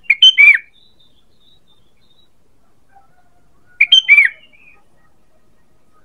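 Sooty-headed bulbul (kutilang) calling. It gives two short phrases of a few loud whistled notes, one right at the start and another about four seconds later.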